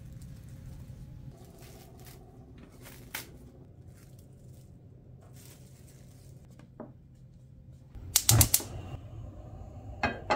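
Plastic cling wrap crinkling and crackling as it is stretched over a metal baking tray, with scattered soft clicks over a steady low hum. About eight seconds in there is a brief loud clatter of sharp strokes, and a single sharp knock comes just after ten seconds.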